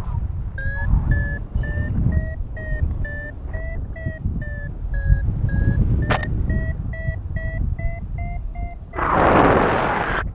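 Paragliding variometer beeping steadily, about two and a half beeps a second, signalling that the glider is climbing in lift; the pitch dips a little and then rises as the climb strengthens. Wind rumbles on the microphone throughout, with a loud gust near the end.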